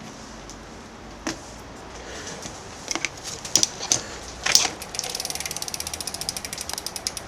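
Huffy freewheel front hub clicking as the wheel spins freely: its brass pawls ratchet over the hardened teeth in a rapid, even ticking that starts about five seconds in. Before it come a few separate knocks and clicks as the wheel is handled.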